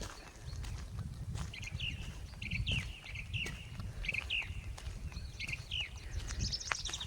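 Small songbirds chirping over and over, each a short falling chirp, over a low rumble and scattered sharp clicks of footsteps on a walk outdoors.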